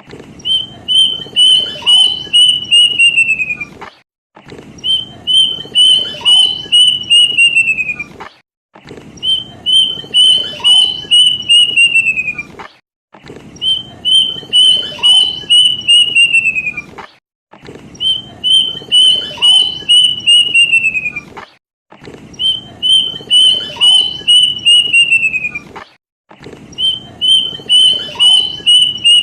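Kedasih cuckoo song: a series of about eight loud whistled notes that runs faster and falls in pitch at the end, the same phrase repeated about every four seconds with short pauses between. It is a playback lure call used to set kept birds singing.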